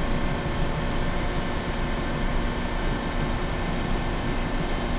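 Steady machine hum and hiss with a few constant tones, from a running hydraulic concrete compression testing machine.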